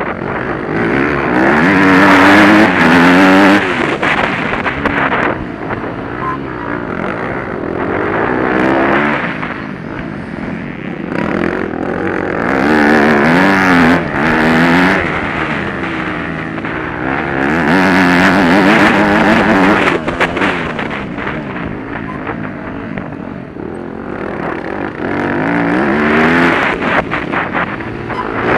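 Motocross dirt bike engine heard close up from on board, revving hard and easing off as it races round the track. Its pitch climbs in several surges of throttle and drops back between them.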